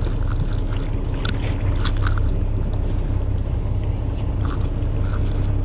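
Charter boat's engine running with a steady low hum, with a few light clicks and rattles of a fishing reel and tackle being handled.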